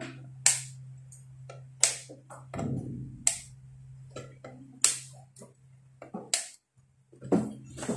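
Pliers clicking sharply against component leads and solder joints on the underside of an amplifier circuit board. There are five crisp snaps, about a second and a half apart.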